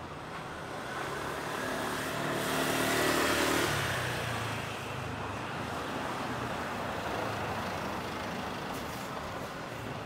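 A motor vehicle drives past on the street: its engine and tyre noise swell to a peak about three seconds in and then fade away, over a steady background street hum.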